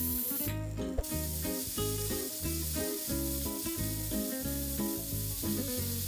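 Pressure cooker letting off steam in a steady hiss through the weight on its lid, which breaks off briefly about half a second in, while the cooker builds pressure toward a whistle. Background music with a plucked-string melody plays throughout.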